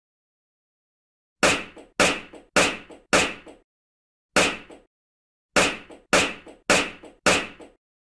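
Champagne cork popping out of the bottle, nine sharp pops in quick succession starting about a second and a half in, each followed by a fainter second tap a moment later.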